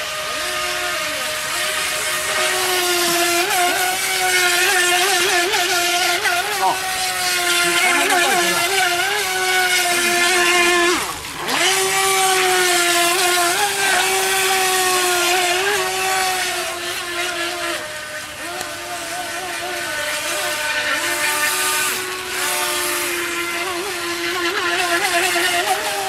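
FT007 RC speedboat's electric motor whining at speed, its pitch wavering up and down continuously. The whine drops sharply about eleven seconds in, then climbs back.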